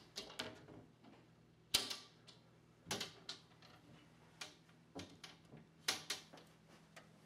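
Wooden cabinet doors being handled and opened: about ten irregular sharp clicks and knocks, the loudest about two seconds in, over a faint low hum.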